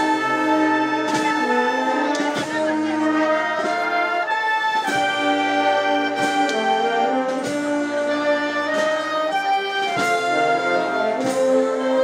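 Music with brass instruments playing a melody over a regular beat.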